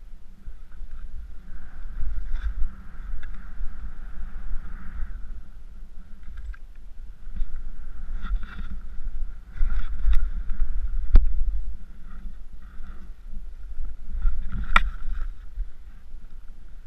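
Skis swishing through deep powder snow in a run of turns, the hiss swelling and fading with each turn, over a low wind rumble on the microphone. A few sharp clicks cut through, the loudest about eleven and fifteen seconds in.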